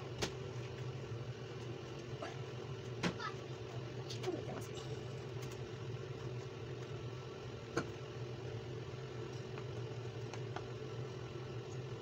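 A steady low hum, like a running appliance, under a few sharp taps from bread slices and a metal fork being handled on a stone countertop, the clearest about three seconds in and near eight seconds.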